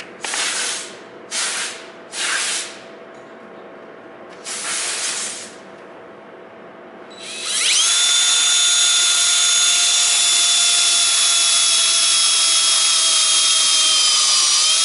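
Power drill cutting into the lead intercell bar of a forklift battery: a few short bursts of noise, then from about seven seconds in a loud, steady whining drill run whose pitch sags slightly near the end under load.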